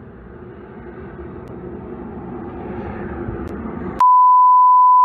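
Jet noise from low-flying CL-41 Tutor trainers, each with a single J85 turbojet, growing slowly louder as they pass. About four seconds in, a loud, steady electronic beep cuts in abruptly, the kind dubbed over a swear word.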